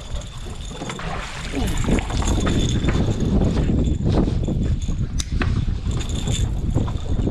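Wind rumbling on the microphone aboard an open fishing boat, with a few sharp clicks and knocks, one about a second in and two close together past the middle.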